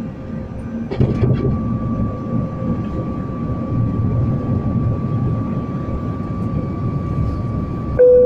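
Airliner cabin noise: a steady rush of engine and airflow with a thin constant whine, growing louder about a second in. Near the end a loud steady tone cuts in.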